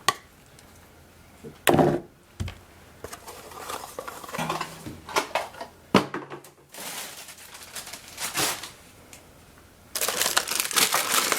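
Plastic cat-fountain parts and packaging being handled during unboxing: a few sharp plastic knocks and scattered rustling, then steady crinkling of packaging for the last second or so.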